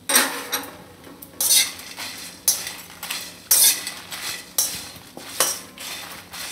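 Flat metal spatula scraping and turning dry whole spices (dried red chillies, bay leaves, star anise, cloves) around a metal kadai as they roast, in sweeping strokes roughly once a second.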